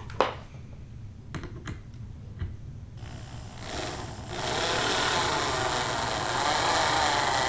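Electric drill driving a long wood screw through a pine apron board into a tabletop. A few light clicks of the screw being handled come first; the drill then starts softly about three seconds in and runs steadily and louder from about four seconds on.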